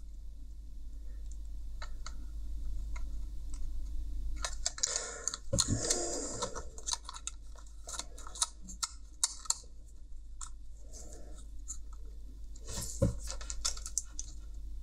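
Small scraping and clicking handling sounds: multimeter test probes being set and scratched against a headphone's circuit-board pads while the plastic earcup and its parts are shifted, with a longer rustle about five seconds in and a cluster of clicks near the end. The meter gives no continuity beep, because the ground wire being tested is open.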